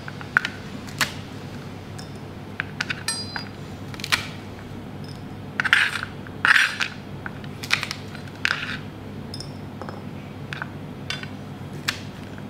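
Chef's knife on a plastic cutting board as garlic cloves are crushed under the flat of the blade and sliced: irregular sharp knocks on the board, with a few short crunches about halfway through. A steady low hum runs underneath.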